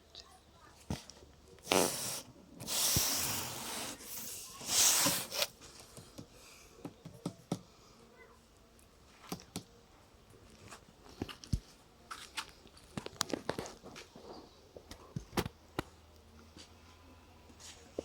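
Packaging being handled during an unboxing: three loud rustling bursts of wrapping in the first five seconds or so, then scattered light clicks and knocks as the circular saw and its parts are moved about.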